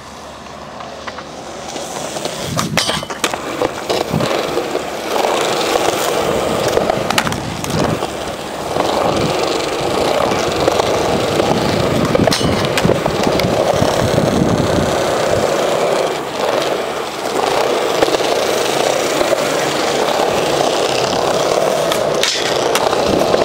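Skateboard wheels rolling loudly over smooth concrete, broken several times by sharp clacks of the board popping and landing, with grinds along metal rails.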